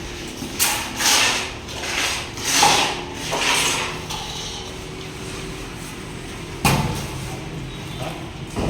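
Construction work: four or five rough scraping strokes in the first few seconds, then a single sharp knock about two-thirds of the way in.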